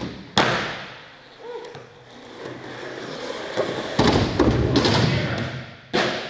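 Skateboard slamming down and its wheels rolling on a concrete floor. There is a sharp board smack about half a second in, a cluster of hard knocks with rolling around four to five seconds in, and another knock near the end. The board is a recyclable prototype made without maple wood.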